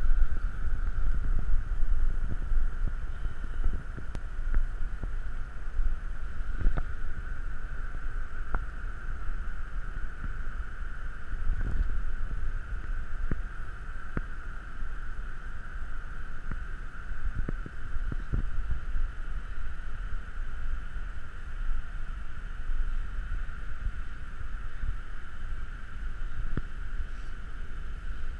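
Steady low rumble of wind and surf on the camera microphone, with a constant faint high whine and scattered small clicks and taps.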